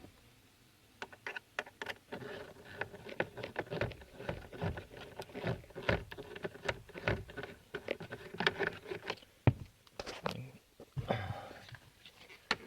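Plastic dashboard trim and fuse-box cover being handled and clipped back into place in a car's lower dash, making many small clicks and knocks.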